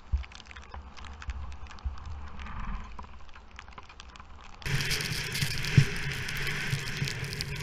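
Skis sliding and scraping over snow, with scattered clicks and crackles. About two-thirds of the way through, the sound changes abruptly to a louder, brighter rush of wind and snow hiss on the GoPro.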